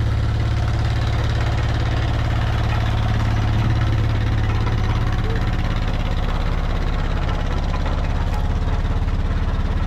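An engine running steadily at a constant speed, a low, even drone that does not change.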